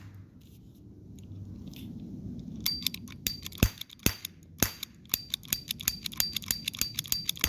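Parris Big Tex 12-shot toy cap revolver fired with ring caps. After a quiet start come three loud, sharp snaps about half a second apart, then a quick run of lighter metallic clicks about four a second, each with a short high ring.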